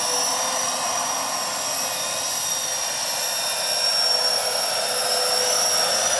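Electric ducted fans and wing lift fans of an RC VTOL jet model at hover power: a steady high whine over a rush of air, holding nearly one pitch.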